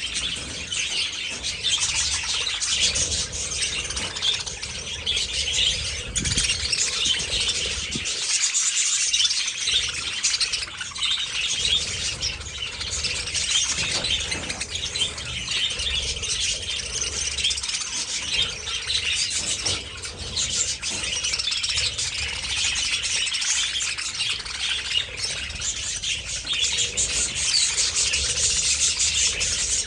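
A large flock of budgerigars chattering and chirping continuously, a dense mass of many overlapping high calls.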